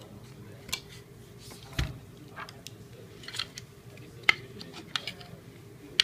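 Irregular sharp clicks and light plastic knocks as a LiPo battery's XT60 connectors and black plastic battery case are handled and fitted together by hand, with one duller knock about two seconds in.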